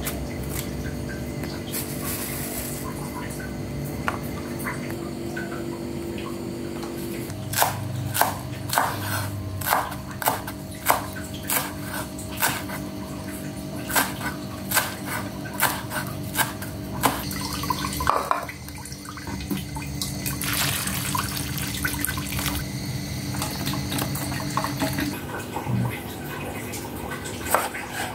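Cleaver chopping spring onions on a wooden cutting board: a steady run of sharp knocks, a little over one a second, through the middle of the stretch, with a few single knocks near the end. A steady hum runs underneath.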